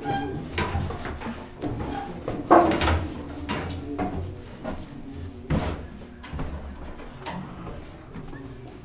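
Footsteps and metal clanks on a battleship's steel ladder and deck plating, a string of separate knocks with one louder bang about two and a half seconds in.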